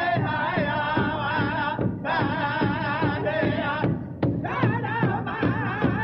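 Music: a singing voice with a strong vibrato in phrases of about two seconds, breaking briefly twice, over a steady drumbeat.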